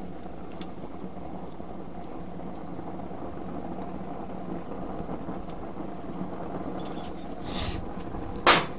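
Steady low rushing hum of a Weber gas grill's burners running under a griddle plate, with a single sharp knock near the end.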